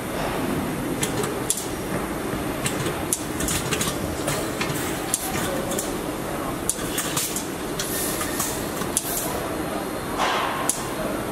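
Car assembly-line floor: a steady machinery hum with many irregular metallic clicks and knocks, and a brief louder burst of noise about ten seconds in.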